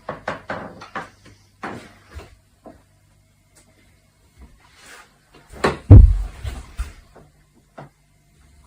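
A series of short wooden knocks and clatters, with one loud, heavy thump about six seconds in.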